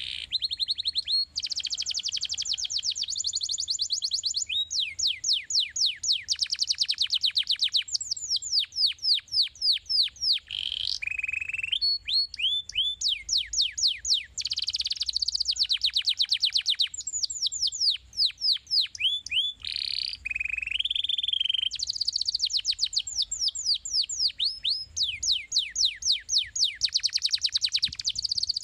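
Domestic canary singing a long, continuous song of fast trills: runs of rapid, repeated down-sweeping notes that switch to a new pattern every few seconds, with only brief breaks.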